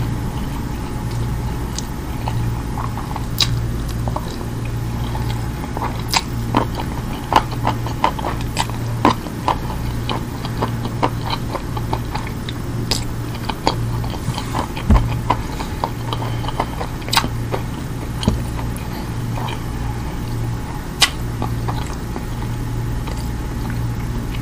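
Close-miked ASMR chewing of roast lamb and kabsa rice, with many short wet mouth clicks and smacks scattered throughout, over a steady low hum.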